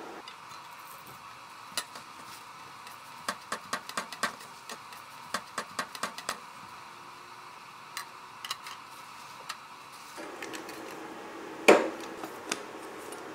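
Scattered sharp clicks and taps of objects being handled on a workbench, with a quick run of them in the first half. Near the end comes a loud snap as a utility knife cuts the tip off a caulk tube.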